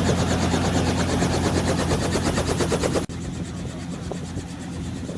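Helicopter engine and rotor noise: a steady drone with a rapid, even rotor beat, which drops suddenly to a quieter rumble about three seconds in.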